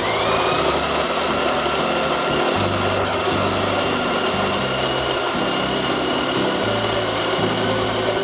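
Electric coffee grinder running steadily as it grinds coffee beans, its motor note rising briefly as it starts. Background music plays underneath.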